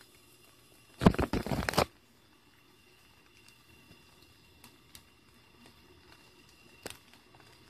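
A rough, crackling rustle lasting just under a second, about a second in. Then a low steady background with a single click near the end.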